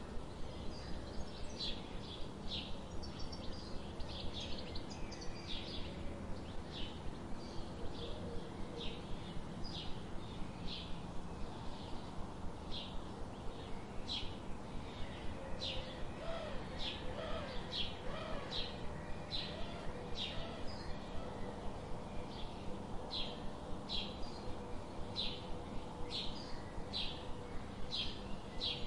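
Birds chirping: a steady run of short, high chirps repeating every second or so over a constant background hiss, with a few lower gliding calls about halfway through.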